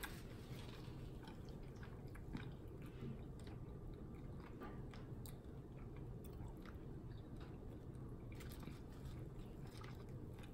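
A person chewing buffalo wings and French fries close to the microphone, with irregular small wet mouth clicks.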